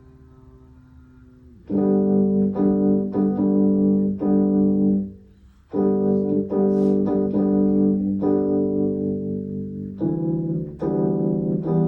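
Instrumental rehearsal music: a keyboard playing struck chords, coming in loudly after a soft held note about two seconds in, with a brief pause near the middle.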